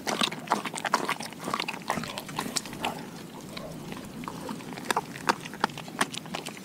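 Doberman chewing raw food: irregular wet crunches and smacks, busy in the first couple of seconds, thinning out around the middle and picking up again near the end.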